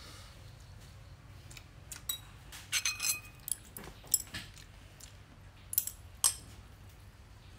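Metal spoon clinking against a small stainless steel bowl: a quick run of clinks about three seconds in, a single sharp clink a little after four seconds, and two more near six seconds.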